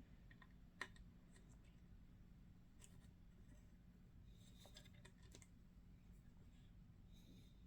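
Near silence with faint, scattered clicks of small model-aircraft parts being handled and fitted, one sharper click about a second in, over a faint low hum.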